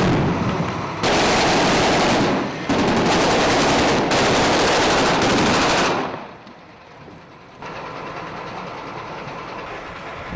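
Automatic weapons fire in long rapid strings, with short breaks about one and two-and-a-half seconds in, stopping about six seconds in; after that a quieter, steady noise.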